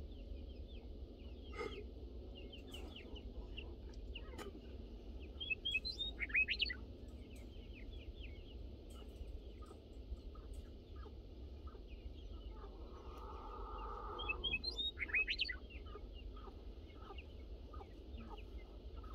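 Backyard chickens calling in the pen: many short high chirps, with two louder runs of calls about five seconds in and again about fourteen seconds in, over a constant low rumble.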